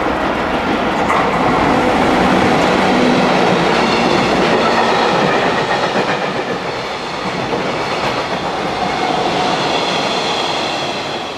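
A freight train passing at speed, its wheels running along the rails in a loud, steady rush that peaks a few seconds in and eases slightly in the second half.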